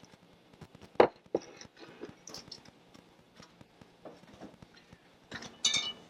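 Objects handled on a countertop: one sharp knock about a second in, a lighter knock just after it, scattered soft clicks and taps, and a short clattering rattle near the end.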